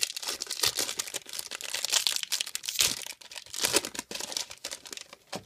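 Foil trading card pack wrapper being torn open and crinkled by hand: a dense run of irregular crackles and rustles that fades out near the end.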